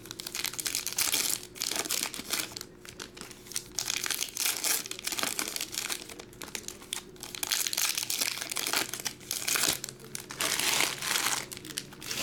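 Foil trading card pack wrappers crinkling in irregular bursts as the packs are torn open by hand and the cards pulled out.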